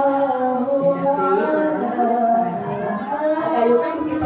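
Voices chanting unaccompanied in long, drawn-out sung notes.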